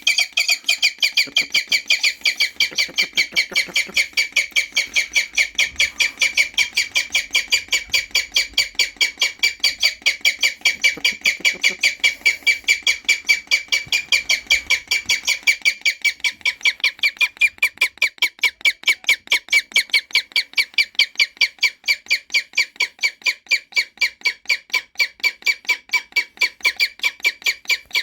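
A captive bird of prey calling over and over in short, sharp, evenly spaced notes, about four or five a second, keeping the same pitch and pace throughout.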